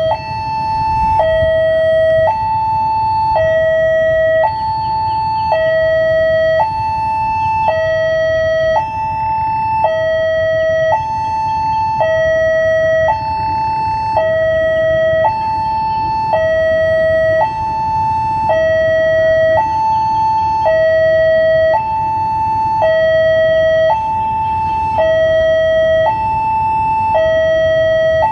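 Electronic two-tone hi-lo warning siren, switching steadily between a high and a low pitch about once a second, loud and unbroken, over a low rumble.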